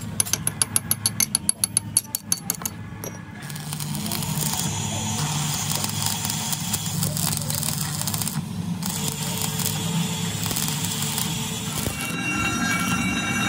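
A fast run of sharp taps for about three seconds, then the steady crackle and hiss of a stick-welding arc laying weld onto a broken pinion gear tooth, with a low hum underneath.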